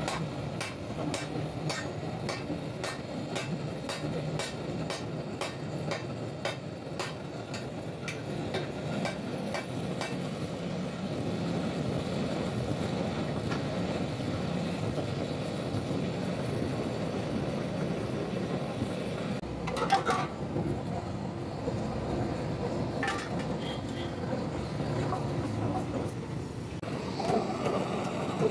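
Old kerosene pressure blowtorch giving a steady low rumble, with evenly spaced sharp clicks, two or three a second, over the first ten seconds as its tank is hand-pumped. A single louder metallic clank comes about twenty seconds in.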